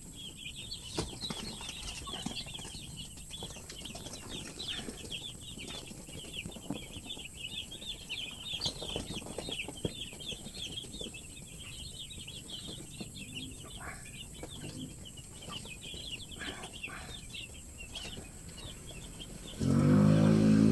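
A brood of young chicks peeping continuously, many high, short cheeps overlapping. Near the end a much louder steady low-pitched tone starts abruptly.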